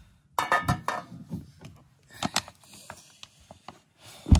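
Metal cooking pot set down on a portable gas camping stove: a clatter with a brief metallic ring about half a second in, then scattered light knocks and clicks, and a dull thump near the end.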